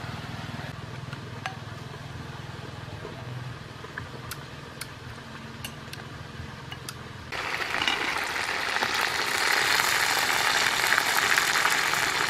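A spoon stirring sauce in a ceramic bowl, a few light clinks over a low hum; about seven seconds in, a loud steady hiss of a pot of chicken boiling in cola takes over.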